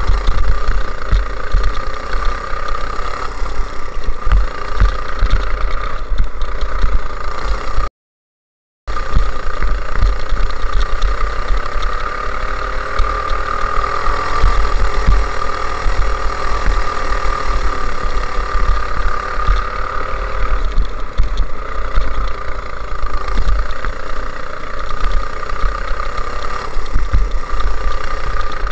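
Go-kart engine running flat out around a track, heard from on board, its note rising and falling with the throttle through the corners over a heavy rumble of wind and vibration on the mic. The sound cuts out completely for about a second about a third of the way in.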